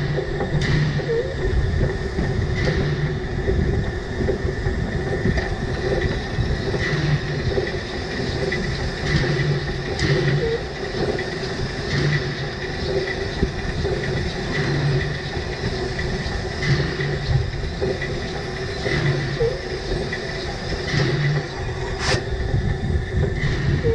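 2 ft 6 in narrow-gauge steam locomotive moving slowly on its own, running round its train: a steady low running noise with soft puffs every couple of seconds. A few sharp clicks over rail joints and points, the loudest near the end, and faint short wheel squeaks.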